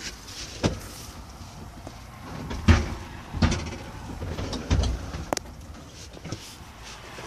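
Handling noise from a handheld camera moving over a truck cab's dashboard and panels: a handful of irregular knocks and rubbing thumps, the loudest about three seconds in.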